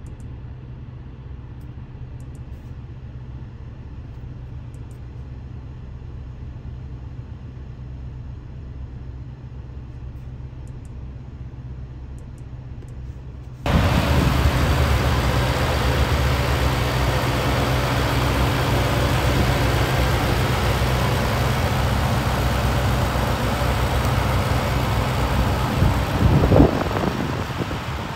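2023 Audi RS7's 4.0-litre twin-turbo V8 on the move, first a low steady hum. About fourteen seconds in the sound suddenly becomes much louder, a full rush of engine, wind and road noise, with a brief rise and fall in pitch near the end, the loudest moment.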